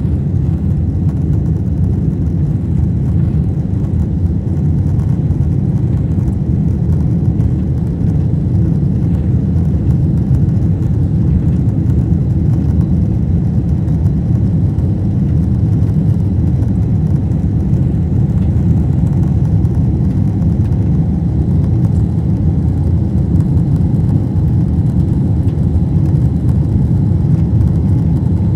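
Boeing 747 cabin noise during the climb after takeoff: a steady, low rumble of engines at climb power and airflow, heard from a seat over the wing.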